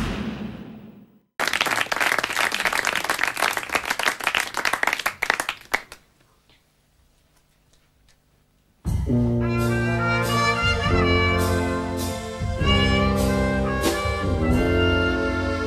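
A burst of clapping that dies away after a few seconds, a short pause, then a small band of trumpet, trombone, clarinet, accordion, double bass and drums strikes up a brassy cabaret-style introduction.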